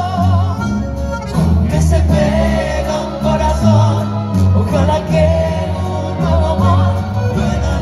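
Live concert music: a woman singing held, wavering notes over a band with guitars and violins and a steady bass line.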